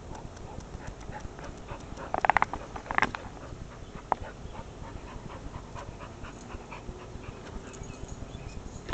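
A small long-haired dog panting close to the microphone in quick, regular breaths. Louder short bursts come about two seconds in and again about three seconds in.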